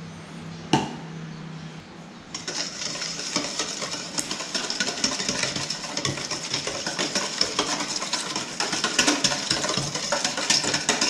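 A utensil mixing wet bread-dough ingredients (melted butter, sugar, egg and foamy yeast milk) in a mixing bowl, with fast continuous clinking and scraping against the bowl. The mixing starts about two seconds in, after a single sharp knock.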